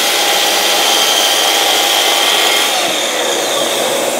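Festool Kapex KS 60 sliding mitre saw running and cutting through a 60 mm deep piece of ash, a full-depth cut at the saw's rated maximum, over the steady hiss of the connected dust extractor. About three seconds in, the motor note starts to fall as the blade spins down.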